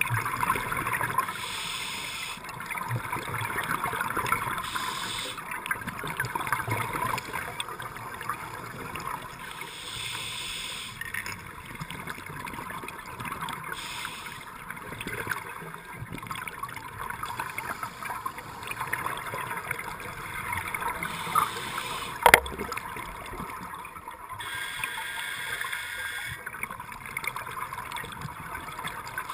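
Underwater sound heard through a diver's camera: a steady crackling hiss with bursts of scuba regulator exhaust bubbles every few seconds, and one sharp knock about three-quarters of the way through.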